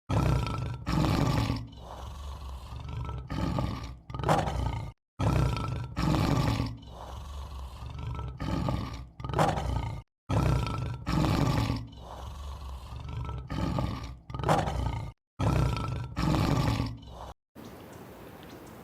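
A lion roaring: a deep, loud call followed by shorter grunting roars. The same roughly five-second roaring sequence repeats three and a half times with abrupt cuts between. It gives way to faint outdoor background near the end.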